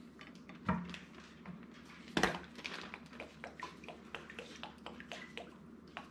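Faint, scattered small taps and ticks of kitchen food prep: a seasoning shaker shaken over raw venison and Worcestershire sauce trickling from its bottle into a measuring cup. There are two louder knocks, one just under a second in and one about two seconds in.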